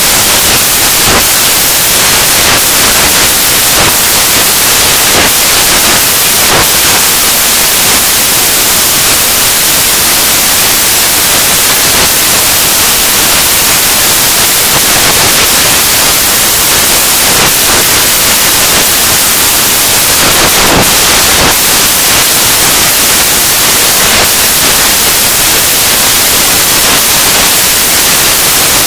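Loud, steady static-like hiss, strongest in the high range, with a few faint clicks and nothing else standing out above it.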